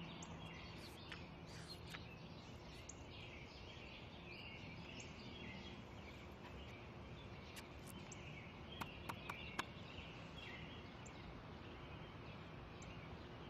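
Faint outdoor ambience of small birds chirping in the trees over a steady background hiss, with a few short, sharp clicks about nine seconds in.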